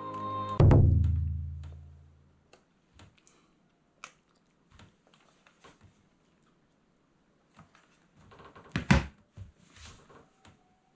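Background music ends on a deep struck note that rings out and fades over about two seconds. After it come scattered faint clicks and knocks, and a louder short burst about nine seconds in.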